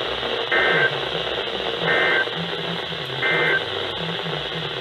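NOAA Weather Radio sending the EAS end-of-message code: three short bursts of SAME data tones, about a second and a half apart, over steady radio hiss. The bursts mark the end of the warning broadcast.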